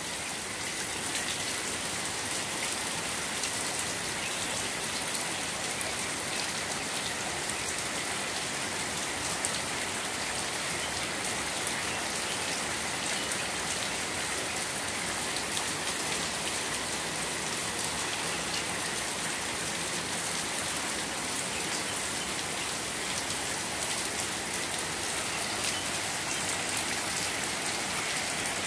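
Heavy rain pouring steadily onto a flooded yard, the drops splashing into shallow standing water.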